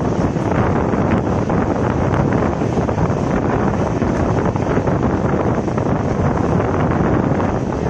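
Steady wind noise buffeting the microphone at the open window of a moving passenger train, over the continuous running noise of the coaches on the track.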